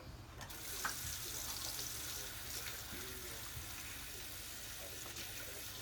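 Kitchen sink tap running steadily as hands are washed under it; the water comes on about half a second in.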